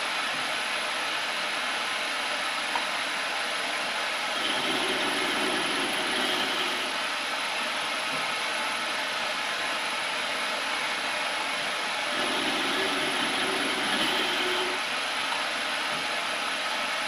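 Metal lathe running steadily while an electronic lead screw cuts a metric thread in repeated automatic passes. Twice, about four and about twelve seconds in, it grows louder for a couple of seconds as the carriage makes a pass.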